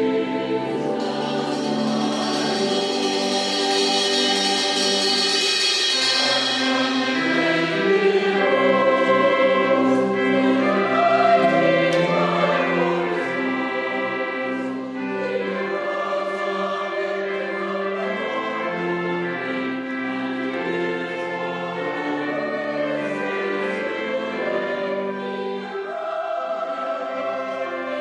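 Choir singing a slow piece with long held notes.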